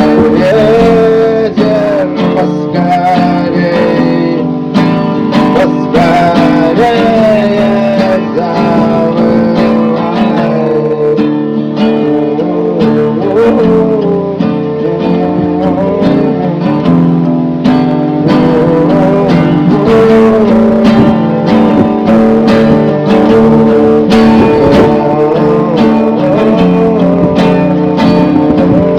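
Music: strummed acoustic guitar chords with a wavering melody line over them, playing steadily without a break.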